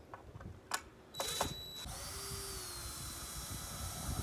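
Cordless drill (DeWalt) running on a wooden board frame: a short burst with a high whine about a second in, then a longer steady run from about two seconds in whose whine slowly falls in pitch.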